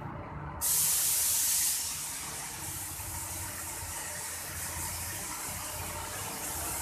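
Paint spray machine spraying wall paint: a sudden loud hiss starts about half a second in, eases after about a second and keeps on, over the steady hum of the sprayer's motor.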